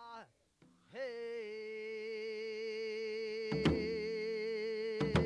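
Ssitgimgut shaman chant from Jindo: after a brief pause, a voice holds one long sung note with a wide, even vibrato. Two drum strokes on an hourglass drum (janggu) fall about a second and a half apart.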